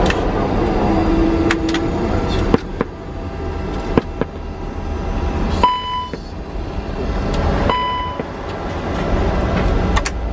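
Airbus A300-600 flight-deck noise on the ground: a steady low rumble, with sharp clicks of controls and switches being worked. Near the middle come two short electronic beeps about two seconds apart.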